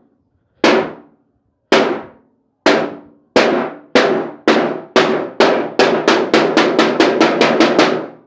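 A metal can struck hard with a wooden broom-handle stick to imitate gunfire. It makes a series of sharp, ringing bangs, about a second apart at first and speeding up to about five a second near the end.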